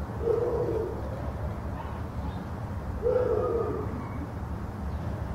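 A dove cooing in the background: two low, hooting coos about three seconds apart.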